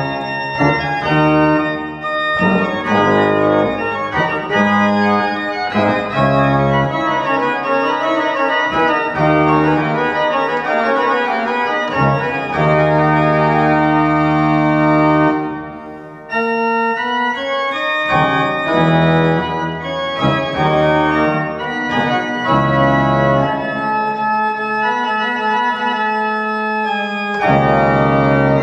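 Historic baroque pipe organ played from its console: full sustained chords over held pedal bass notes, with a brief break about sixteen seconds in before the playing resumes.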